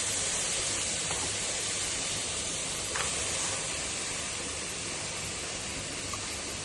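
Pot sizzling steadily as soaked harees wheat fries in oil with onion, garlic and carrot, with a faint tap about three seconds in.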